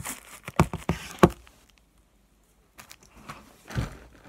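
Close handling noise as a toy baby doll's nappy is put back on: several sharp knocks and bumps in the first second and a half, a short pause, then softer bumps and rustling near the end.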